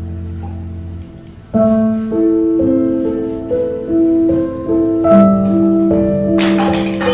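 Instrumental background music: a slow melody of held notes. It dips briefly about a second in, then a new phrase begins, and a short rushing swell comes in near the end.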